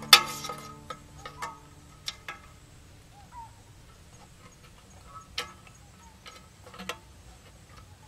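Scattered sharp clicks and taps of bamboo sticks and hands against a tin can and board as the trap's trigger sticks are fitted. The loudest is a sharp click with a brief ring right at the start; the rest come singly every second or two.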